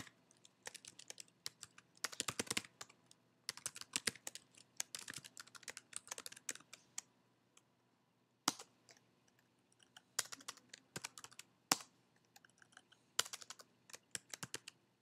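Typing on a computer keyboard: quick runs of keystrokes broken by short pauses, with a few louder single key strikes.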